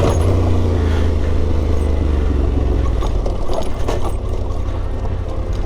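Yamaha Ténéré 700's parallel-twin engine running steadily at low revs in second gear on a rough off-road track, with a few sharp knocks from the bike over rocks near the middle.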